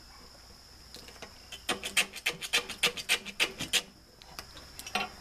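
Small screwdriver scraping old silicone out of a wood stove insert's metal gasket channel, in a quick run of short rasping strokes, about five a second, starting about a second and a half in, with a few more strokes near the end.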